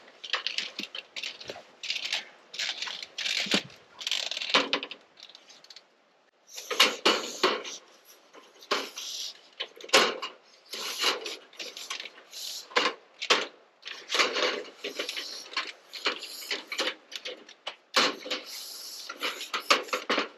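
Irregular clattering and rustling from handling gutter parts and tape, in quick bunched bursts with a short pause about six seconds in.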